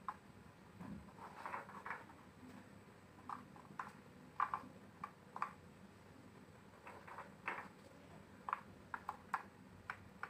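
Faint, irregular small clicks and taps as pomegranate arils are set one by one into a plastic tray of liquid, with fingers touching the tray's plastic.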